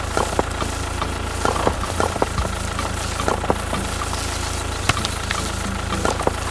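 Tractor engine idling with a steady low drone, with scattered sharp clicks and knocks over it.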